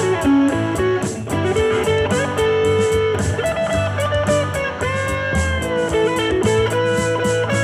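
Stratocaster-style electric guitar playing a bluesy lead improvisation, with sustained and bent notes, over a backing track with drums and bass.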